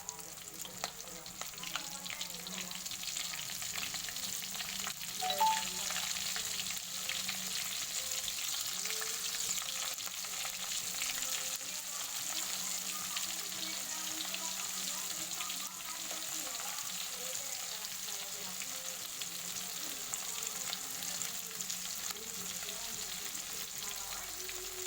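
Flour-battered oyster mushrooms frying in hot oil: a steady sizzle full of fine crackles, with one short louder sound about five seconds in.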